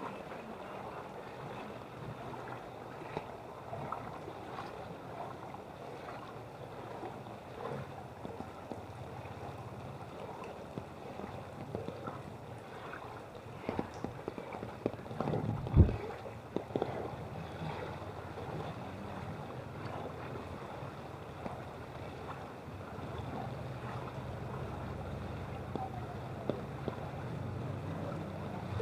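Water sloshing and splashing as someone wades through knee-deep street flood water, over a steady wash of noise, with one sharp loud knock about halfway through. A low steady hum comes in near the end.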